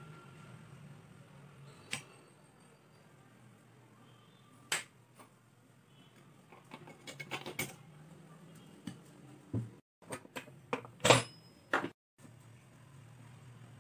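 Scattered clinks and taps of steel kitchenware as rice flour is packed into a steel puttu maker tube, over a low steady hum. The taps come more often in the second half, the loudest a little before the end.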